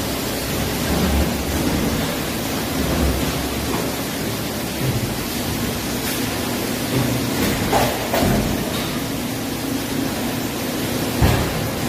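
Steady hiss and hum of a large injection molding machine cell running with its multi-axis takeout robot, with a few short knocks, the loudest about eleven seconds in.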